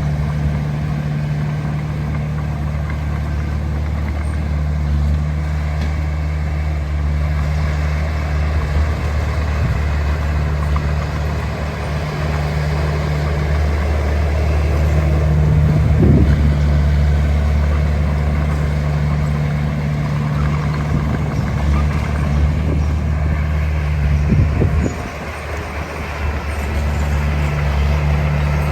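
Heavy diesel engine of earthmoving machinery running steadily with a low, even drone. There is a short knock about halfway through and another later on, after which the engine note briefly drops.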